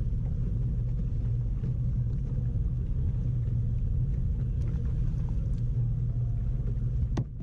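Boat motor running steadily under way, a low even rumble, with a sharp click near the end as it cuts off.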